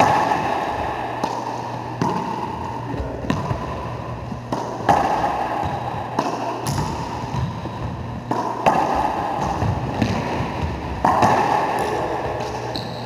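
Racquetball rally: the ball smacks off racquets and the court walls about half a dozen times, a few seconds apart, each hit ringing out in the echo of the enclosed court over a low steady hum.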